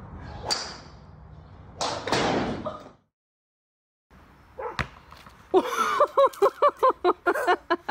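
A golf club's sharp crack on the ball, then a burst of noise. After a short silence comes loud laughter in rapid, evenly repeated bursts.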